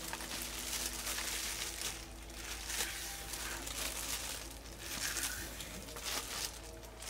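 Thin plastic food-prep gloves crinkling as a knife strips and trims the skin from fresh green vegetable stalks, in a series of rustling, tearing strokes.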